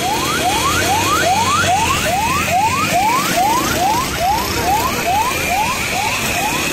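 Ambulance siren sounding a fast repeating yelp: a rising sweep that drops back and starts again, about two to three times a second, over a low engine rumble.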